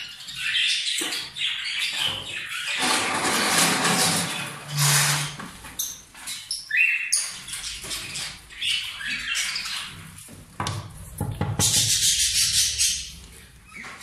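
Caged breeding parrots chirping and squawking, with flapping wings and scattered sharp clicks and rattles.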